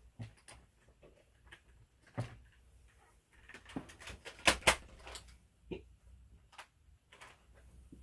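Scattered light clicks and knocks, with two sharp knocks in quick succession about halfway through.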